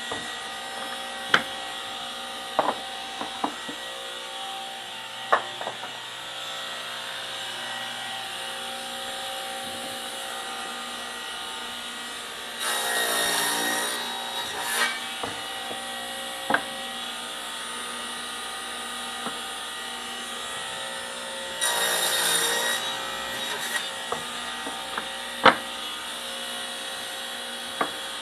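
Table saw running steadily with its blade spinning, cutting through a 2x4 on a crosscut sled twice, about 13 s in and about 22 s in, each cut lasting a second or so. Sharp knocks sound here and there between the cuts.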